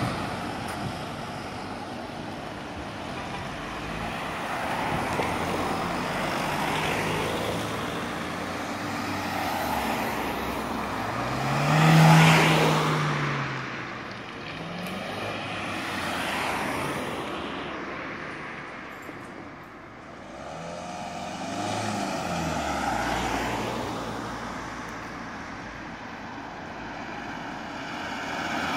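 Cars, among them Ford Focus hatchbacks, driving past one after another, each one's engine and tyre noise swelling and fading as it goes by. The loudest pass comes about twelve seconds in, its engine note rising and then falling.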